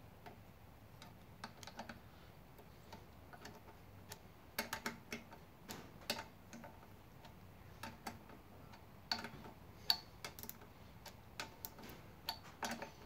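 Faint ratchet clicking and small metal taps in short irregular runs as the air compressor's cylinder head bolts are done up.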